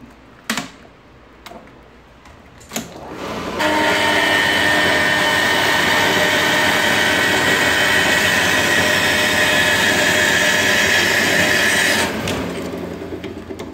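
Horizontal metal-cutting band saw at full blade speed and full feed rate cutting through a metal block. After a few light clicks, a loud, steady cutting sound with several held ringing tones starts about four seconds in and stops abruptly about twelve seconds in, then fades.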